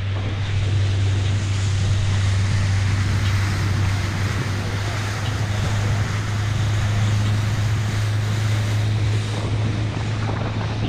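Motorboat engine running steadily at cruising speed, a constant low drone, under an even hiss of wind on the microphone and water along the hull.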